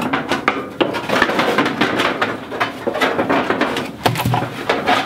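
Dry hay rustling and crackling as it is stuffed by hand into galvanized steel chicken nest boxes, with irregular light knocks and clatter throughout.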